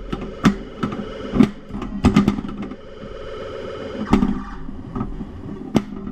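Stern Stargazer pinball machine in play: a string of sharp clacks from the flippers and the ball hitting targets and bumpers, over the machine's steady electronic sound effects.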